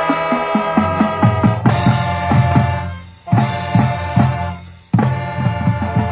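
Marching band playing: brass holding chords over a drum line's snare and bass drum beats. Twice the sound tails off and the full band comes back in with a sudden loud hit, about a third of the way in and again near the end.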